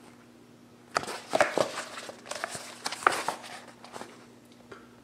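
Paper pages of a book rustling and crackling as it is handled and held up, a cluster of rustles starting about a second in and lasting about three seconds.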